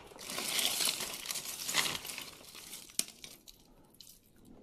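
Crinkling of wrapping being handled for about two seconds, then a few light clicks and one sharper click about three seconds in.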